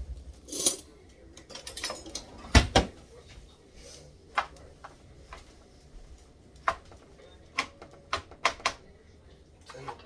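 Irregular clinks and knocks of utensils against dishes, about a dozen sharp strikes, the loudest a quick double knock between the second and third seconds.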